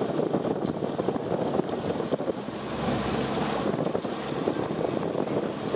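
Wind buffeting the microphone aboard a moving boat, over the rush of water.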